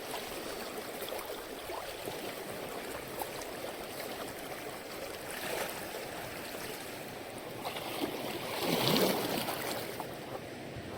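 Steady sound of running water, with a louder swell lasting about a second near the end.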